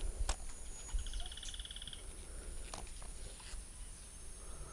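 Quiet riverside outdoor ambience: a steady high-pitched insect drone, a short rapid pulsed trill from a calling animal about a second in, and a few faint clicks over a low wind rumble.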